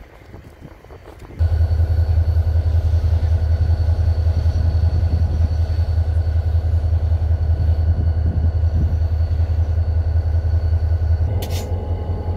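An engine running with a steady low drone and a faint steady whine above it. It starts abruptly about a second and a half in, and a short hiss sounds near the end as the drone eases slightly.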